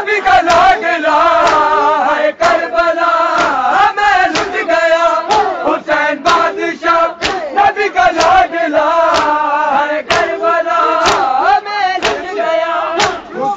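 A crowd of men chanting a Shia nauha together, over sharp rhythmic slaps of hands on bare chests (matam), about two a second.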